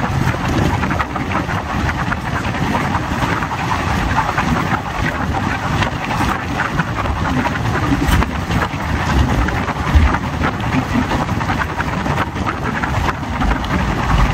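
Old ICF passenger coach running at speed: a steady rumble and rattle of wheels on the rails, with a couple of sharper knocks about two-thirds of the way in and wind on the microphone.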